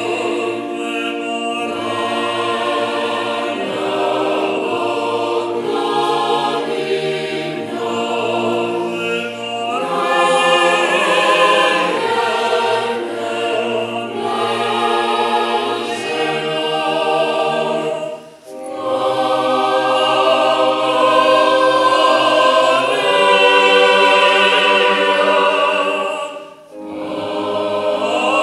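Mixed parish choir of men's and women's voices singing unaccompanied in parts, holding sustained chords, with two short breaks between phrases, one about two-thirds of the way through and one near the end.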